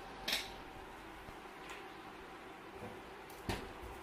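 Handwork with a screwdriver on an old mixer's metal front panel: a sharp click near the start, a few faint ticks, and a louder knock about three and a half seconds in.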